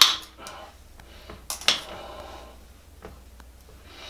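Metal painter's tool scraping old toilet wax off the flange: a few short, sharp scrapes, the loudest at the start and about a second and a half in, with fainter ones near the end.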